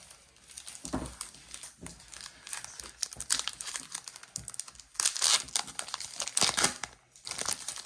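Plastic wrapper of a trading card pack crinkling and tearing as it is opened, loudest in two bursts just past the middle.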